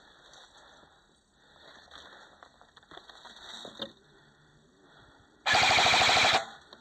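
Airsoft electric rifle firing a short full-auto burst of about a second close to the microphone, a rapid even rattle of shots, after a few seconds of faint rustling.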